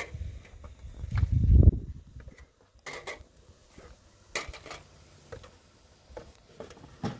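Scattered clinks and knocks of dishes and metal utensils being handled, with a loud low rumble about a second in.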